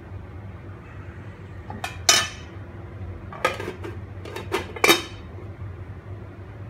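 Stainless steel pot lid being set onto a pan: a handful of sharp metallic clinks with short ringing, the loudest about two seconds in and again near five seconds, over a low steady hum.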